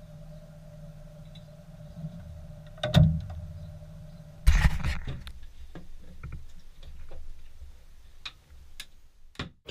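A sailboat's cockpit locker lid shuts with a thump about three seconds in, and a second, louder thump follows a moment later. Light knocks and clicks come after it as a wooden cabin cupboard door is opened, over a low steady hum.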